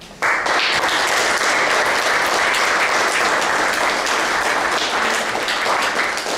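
Audience applauding, breaking out suddenly just after the start and holding steady and loud.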